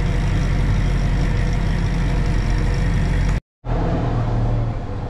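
Tractor engine running steadily at raised revs, heard from inside the cab, driving a feeder wagon as it unloads feed. The sound cuts out completely for a moment about three and a half seconds in, then the engine carries on.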